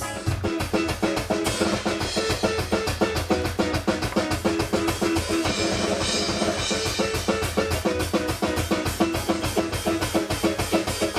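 Rock music with a drum kit, kick and snare, playing a busy, steady beat over sustained pitched instrument notes.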